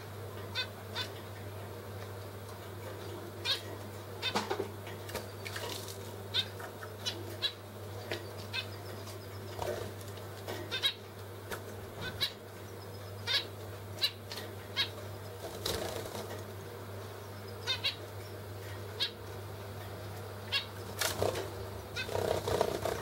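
A pair of zebra finches giving short nasal calls at irregular intervals, with a flurry of wing flapping near the end as one bird flies up.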